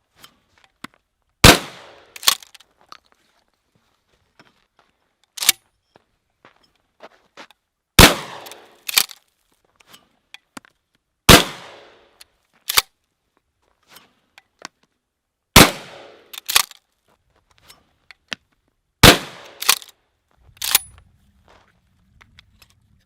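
Five shots from a Remington 870 Wingmaster pump-action shotgun fired at clay targets, spaced a few seconds apart. Each sharp report has a decaying tail and is followed within about a second by a smaller, quieter crack.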